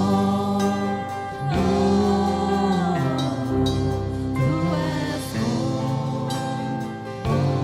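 Christian worship song: voices singing held, gliding melody lines over band accompaniment.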